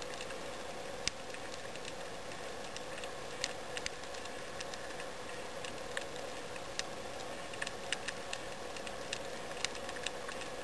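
Underwater ambience heard through a diving camera: a steady hiss with irregular, sharp clicks scattered throughout.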